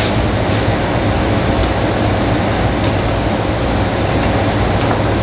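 Steady rush of a running blower fan, with a few faint small metal clicks from hands working the miter saw's blade arbor screw.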